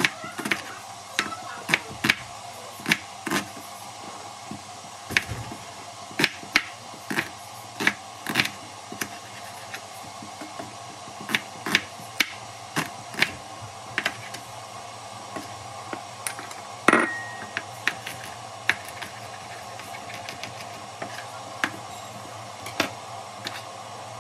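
Kitchen knife chopping onion on a bamboo cutting board: irregular sharp knocks of the blade meeting the board, about one or two a second, over a steady low hum. About two-thirds of the way through comes one louder clack with a short ring.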